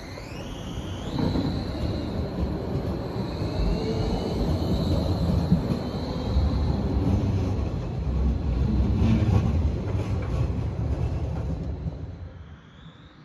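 Bombardier Flexity Outlook tram pulling away from a stop and passing close by. Its electric drive whines, rising in pitch as it picks up speed, over a loud rumble of wheels on the rails that fades away near the end.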